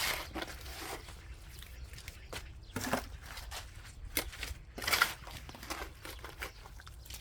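Shovel digging into garden soil: a handful of irregular scraping, crunching strokes, the loudest about five seconds in.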